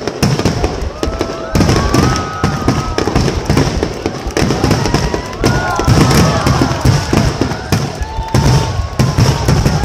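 Barrage of aerial firework shells bursting in quick succession, a dense run of bangs and crackles with hardly a gap.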